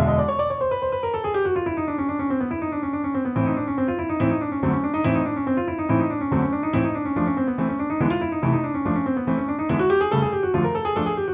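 Piano music: a falling run of notes, then a melody rippling up and down over evenly spaced low notes.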